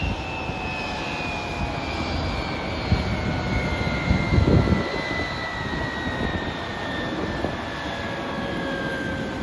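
Boeing 737-200's Pratt & Whitney JT8D turbofan engines spooling down after shutdown: a high whine falling steadily in pitch throughout. Underneath runs a low rumble that swells briefly about three and four and a half seconds in.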